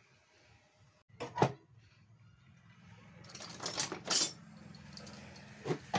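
Metal parts and tools being handled on a workbench during the cut-off saw armature swap. A sharp knock comes about a second in, then a run of clinks and rattles around three to four seconds, and another knock near the end.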